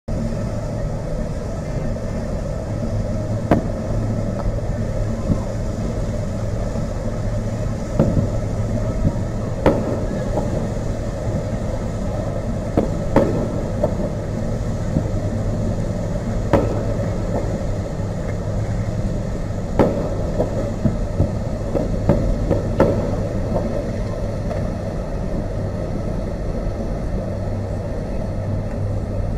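Fireworks heard from a distance: a string of sharp bangs at irregular spacing, a second to a few seconds apart, starting a few seconds in, over a steady low rumble.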